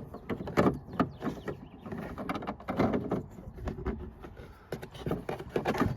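Plastic clicking, knocking and rattling as a reverse-light bulb socket and its wiring are worked back into a car's tail-light housing, with irregular clicks throughout and a cluster near the end.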